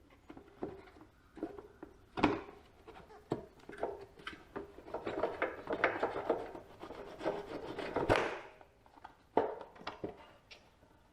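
Hands and tools working at the backhoe's control-stick housing as it is taken apart to reach the linkages: irregular clicks and knocks, one sharp knock about two seconds in, and a few seconds of rubbing and scraping in the middle.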